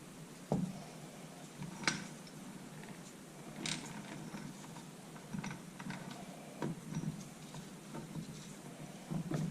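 Light, scattered clicks and taps of hand work on a two-stroke engine's crankcase while the main bearings are coated with assembly lube, about half a dozen at uneven intervals.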